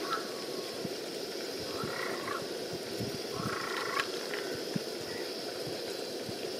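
Steady low rushing of a portable gas stove burner under a simmering pot, with two short animal calls about two and four seconds in.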